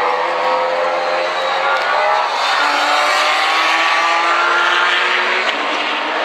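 Several race car engines running hard at high revs, their pitch climbing as they accelerate out of the corner.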